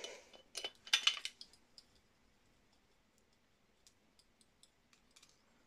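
Glass black-pepper grinder being handled and twisted: a cluster of sharp clicks and clinks about a second in, then a few faint scattered grinding clicks in the last two seconds.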